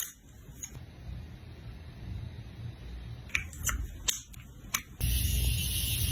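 Makeup products being handled: several sharp clicks, like compacts or caps snapping, over a low rumble, then a loud hiss lasting about a second near the end.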